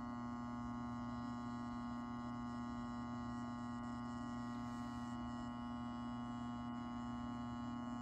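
Furnace blower motor humming steadily when powered, without spinning up: the motor is seized ('frozen up'), which is the real fault behind the furnace's pressure switch error.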